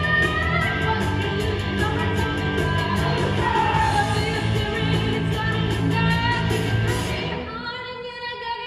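Rock musical-theatre song performed live: singing over a rock accompaniment with a steady drum beat. About seven seconds in, the band drops out, leaving voices holding a note.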